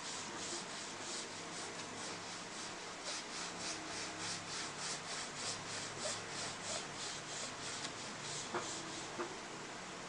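A cloth dampened with cleaning spray is wiped back and forth over a laptop's plastic underside, a rhythmic rubbing at about three strokes a second.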